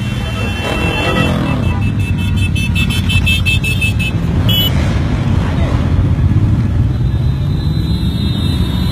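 Busy road traffic: a steady rumble of engines and tyres, with car horns tooting and beeping in the middle.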